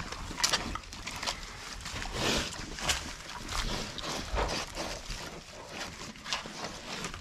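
Pigs eating cabbage, apples and other produce on straw bedding: irregular crunching and chewing sounds.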